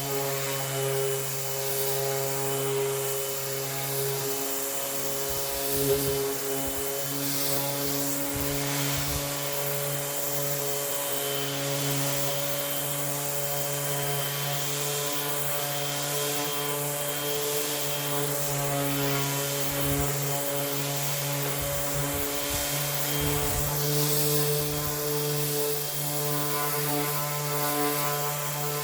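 Electric 5.5-inch disc sander running steadily while rough-sanding a wooden board. Its motor hum shifts slightly in pitch as it is pressed and moved, over the rasp of sandpaper on wood.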